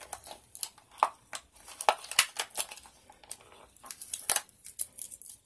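Small plastic makeup packages being handled, giving a run of scattered clicks and crinkles.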